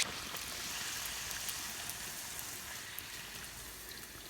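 Faint sizzling of hot cooking oil from frying puri: a soft, even hiss with scattered light crackles, fading slightly.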